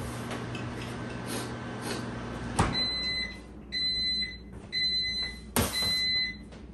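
Microwave oven beeping four times, evenly and about once a second, signalling the end of its heating cycle. A sharp knock comes just before the first beep and another just before the last.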